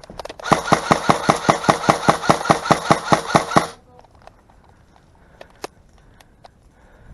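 Airsoft electric gun firing one sustained automatic burst of about six shots a second over the whir of its gearbox motor. The burst stops short just before four seconds in, followed by a few scattered sharp clicks.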